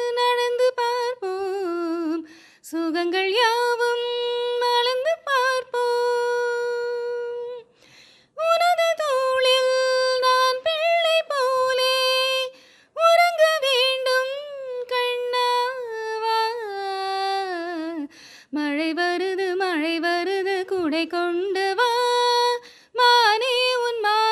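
A woman singing solo without accompaniment, in long ornamented phrases whose held notes bend and waver in pitch, broken by short pauses for breath.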